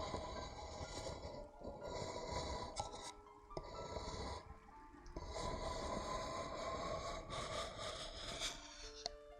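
Close-miked ASMR rubbing and scraping on the microphone: a steady rasp with a faint squeak that dips and rises in pitch, pausing briefly twice.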